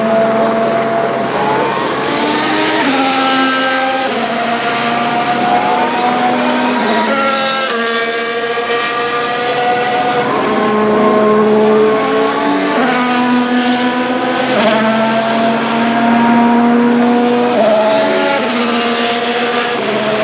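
Several 2025 Formula 1 cars running on track, their turbocharged 1.6-litre V6 hybrid engines overlapping. Each engine note holds a pitch and then jumps up or down with quick gear changes, over and over.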